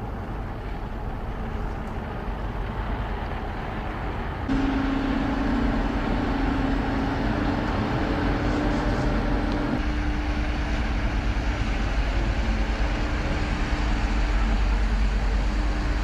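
Steady rumble and hum of ferry engines running. About four and a half seconds in it cuts abruptly to a louder rumble with a steady humming tone.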